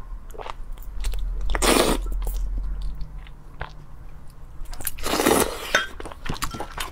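Close-miked eating sounds of a person biting into and chewing a whole octopus head: wet squishing and small crunching clicks, with two louder wet bursts about two seconds in and again about five seconds in.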